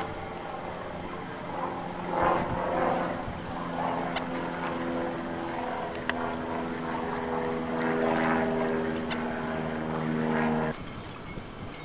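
Propeller engine of a single-engine high-wing light airplane droning steadily as it flies overhead. The sound cuts off abruptly near the end.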